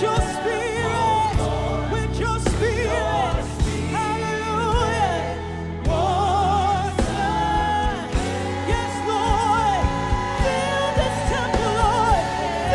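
Gospel worship music: a choir singing with vibrato over a band, with steady bass notes and drum hits.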